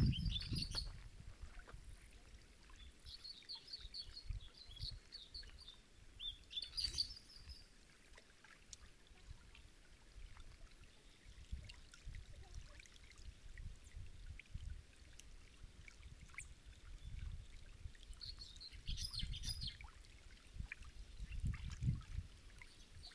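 Small birds chirping in several short, high bursts, with a long pause in the middle, over a low, uneven rumble of wind on the microphone.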